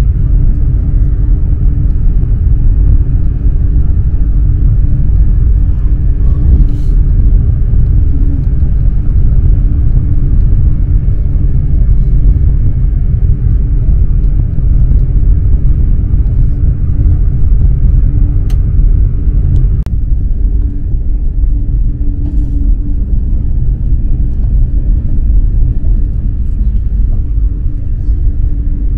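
Eurostar high-speed electric train running, heard on board: a steady low rumble with a faint even hum.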